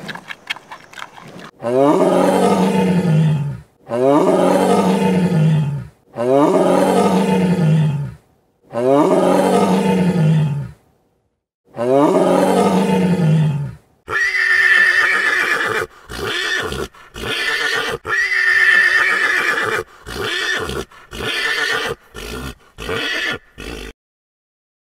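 Loud animal calls: one call about two seconds long with falling pitch, repeated five times in a row, then a different series of shorter calls that stop shortly before the end.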